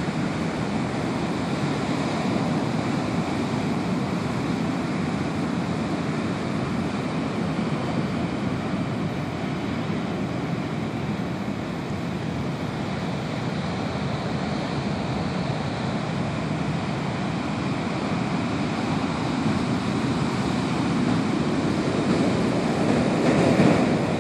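Ocean surf: large white-capped waves breaking offshore and foamy water washing up a sandy beach, a continuous rush that swells louder near the end as a new wave comes in.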